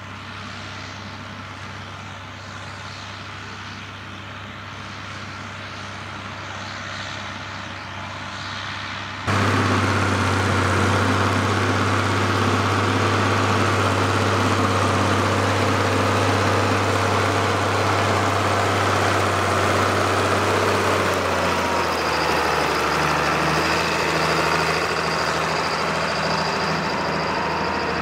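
Case tractor's diesel engine running steadily under load while pulling a plough, a drone that slowly grows louder. It jumps suddenly louder and closer about nine seconds in, and the engine note changes about three quarters of the way through.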